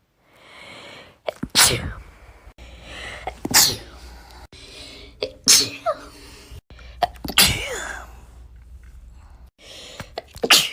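Young women sneezing one after another, about five sneezes roughly two seconds apart. Each is a single sharp sneeze after a short breathy intake.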